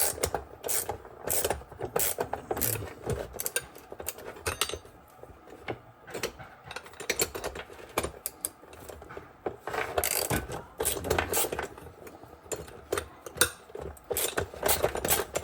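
Ratchet wrench clicking in short runs as a stubborn half-inch bolt is worked loose to free the wagon wheel.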